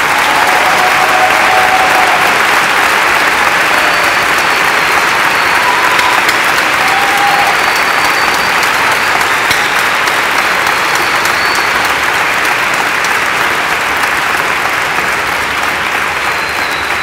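Large audience applauding steadily for a long stretch, easing off slightly near the end.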